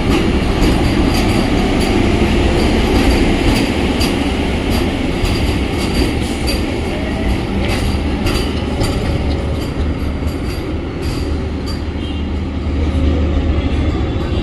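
Vande Bharat Express electric train rolling into the station: a steady rumble of wheels on rail with irregular clicks over the rail joints and some high wheel squeal.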